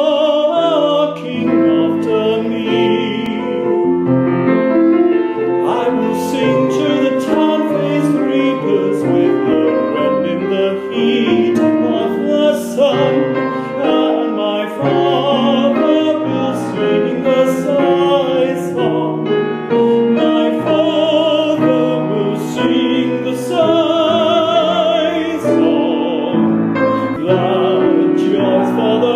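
A man sings an English art song in classical style with a wide vibrato, accompanied by piano.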